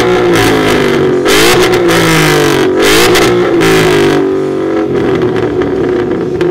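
2013 Ford Mustang GT's 5.0-litre V8 being revved hard through its exhaust several times in quick succession, each rev rising and falling in pitch, then settling back toward idle near the end.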